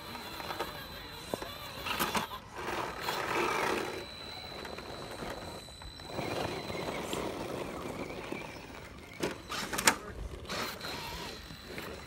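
1/10-scale electric RC rock crawler climbing granite, with a thin steady motor whine and its tyres scrabbling over the rock. Sharp knocks come about two seconds in and again near ten seconds; the later ones are the loudest.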